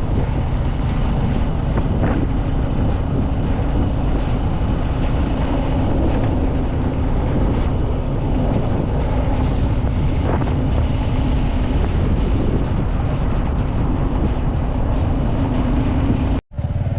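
Steady engine and road noise of a moving motor vehicle, with wind buffeting the microphone. The sound cuts out for an instant near the end.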